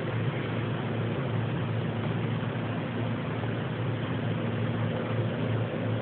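Steady low mechanical drone over a hiss, holding one pitch without a break. It is the unexplained hum from the sky that the recorder likens to a helicopter and calls something never heard before in the countryside.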